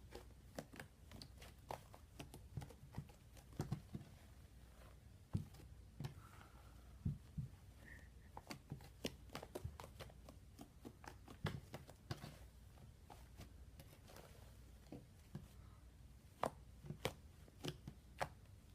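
Homemade fluffy slime being squeezed, stretched and pressed by hand, giving faint, irregular small clicks and pops, several a second.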